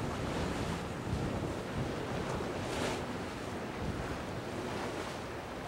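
Wind buffeting the microphone over the rush of waves and boat wake, with the low drone of a passing sportfishing boat's engines showing through, mostly near the end.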